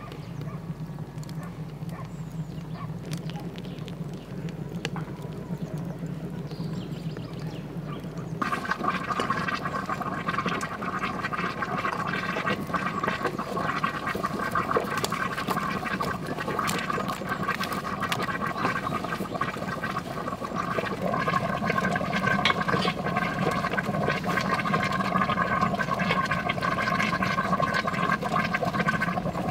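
Wood-fired samovar boiling: a steady bubbling, gurgling water sound with many small crackles, louder and brighter from about eight seconds in.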